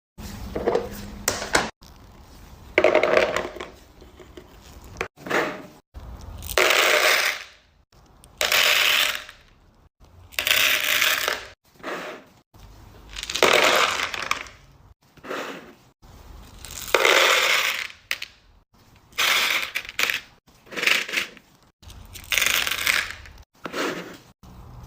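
Hard candies being handled on a platter: a dozen or so separate crackling, clattering bursts, each about a second long, one to two seconds apart.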